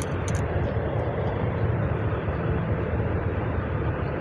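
Steady low rumbling background noise, even throughout, with a few faint clicks right at the start.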